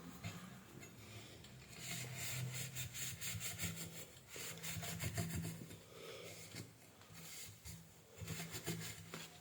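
Quick back-and-forth scrubbing on a hard surface by hand, in several short bursts with pauses between them.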